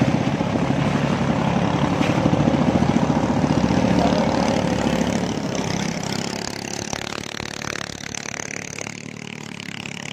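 Small boat engine running close by with a fast, steady chug. It eases off and grows quieter from about halfway through.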